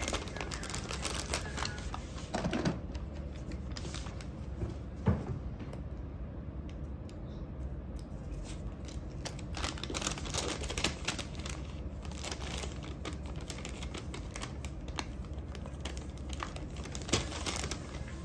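A white paper gift bag being folded shut and sealed with a sticker: paper rustling and creasing, with many small irregular taps and clicks on the countertop.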